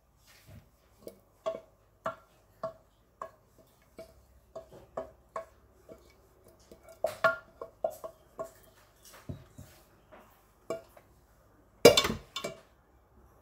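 Utensil scraping and knocking against the inside of a stainless steel pot as puree is scraped out, a run of sharp taps about twice a second, each with a short metallic ring. A louder clatter comes near the end.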